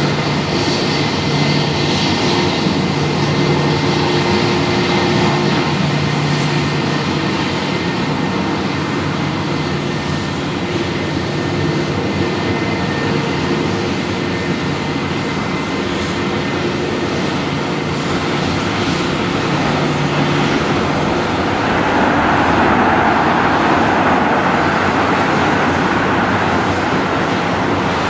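Airbus A320's twin jet engines running at taxi power: a steady rushing noise with a few held tones underneath. The rush swells louder about twenty-two seconds in, then eases slightly.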